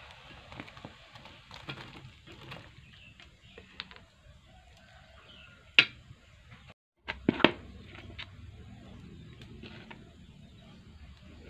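Metal ladle clinking against an aluminium wok, a few sharp knocks over a low background; the loudest come about six and seven and a half seconds in.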